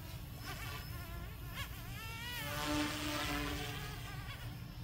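200-size Goosky S2 electric RC helicopter in flight with a heavy resin-printed airframe, its motor and rotors giving a buzzing whine whose pitch rises and falls with the throttle. It grows louder about halfway through, over a low rumble of wind on the microphone.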